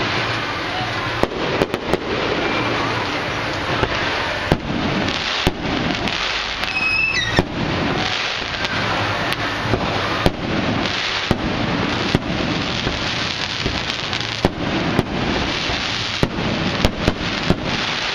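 Fireworks going off: a steady crackling rush with sharp bangs spread throughout, and a brief whistle about seven seconds in.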